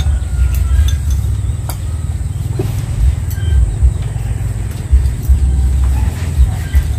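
Low, uneven rumble that swells and drops in irregular gusts, with sharper buffets about five seconds in: wind buffeting the microphone.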